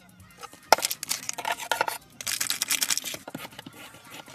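Soft butter slime being squished and pressed by hand, giving two stretches of dense, crackly clicking about a second each.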